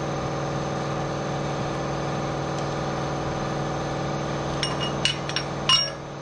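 Air compressor running with a steady hum. Near the end come four or five sharp metallic clinks as the valve spring compressor tool and rocker arm are handled on the overhead-cam cylinder head.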